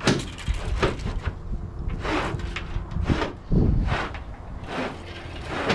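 An old mast rigging rod is pushed along inside a carbon fiber lacing tube, scraping and knocking. Short crunches of steps on gravel come about once a second.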